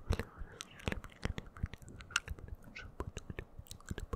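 Close-up wet mouth sounds, many irregular sharp clicks and smacks several times a second, mixed with soft unintelligible whispering right into a foam-covered microphone.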